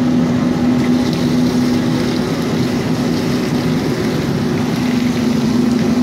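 A motor running steadily with a constant low hum, over an even rush of noise that may include water pouring from a hose.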